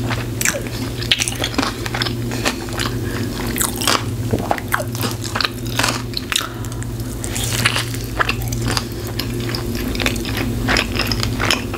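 A person biting into and chewing a cheeseburger, with many short, irregular mouth clicks over a steady low hum.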